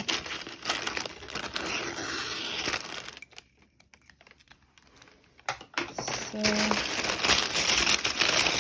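Cardboard box being opened: a small knife slitting it open, then packing peanuts rustling and crinkling as hands dig through them, louder from about six seconds in.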